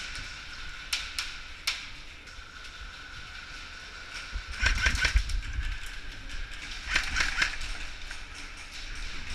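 Airsoft gunfire in an indoor arena: two single sharp cracks about a second in, then two short rattling bursts of rapid shots about halfway through and again about two seconds later.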